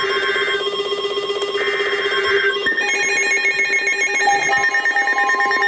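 Emergency Alert System SAME header: two screeching digital data bursts, each about a second long, over a steady tone. About three seconds in, a pulsing electronic alert tone takes over, the attention signal that comes before the spoken warning.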